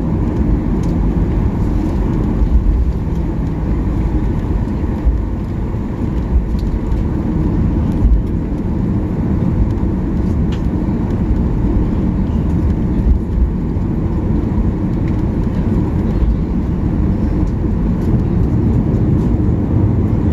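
Cabin noise of a Boeing 737-800 taxiing, its CFM56 jet engines running at taxi power as a steady low rumble. A few light bumps come through, about two to five seconds apart.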